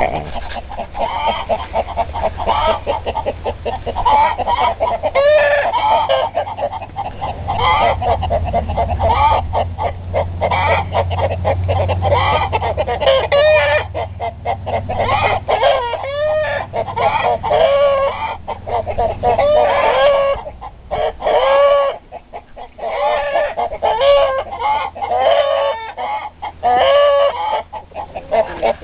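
A flock of chickens clucking and calling, many short arched calls overlapping one another, with a low rumble underneath that fades out about twenty seconds in.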